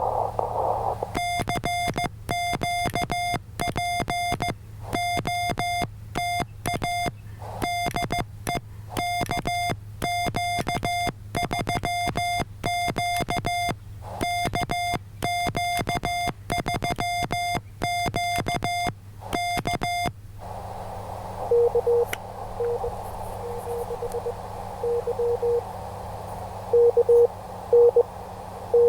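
Morse code (CW) on a ham radio: for about the first twenty seconds a loud, clean sidetone keyed on and off as the operator sends, then the receiver's hiss returns with a fainter, lower-pitched Morse signal from another station coming through the noise.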